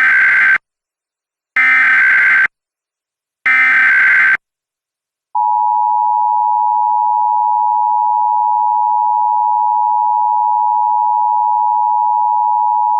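Emergency Alert System SAME header: three bursts of shrill digital data tones about a second long each, encoding an Emergency Action Notification. Then the EAS two-tone attention signal (853 and 960 Hz together) is held steady for about eight seconds.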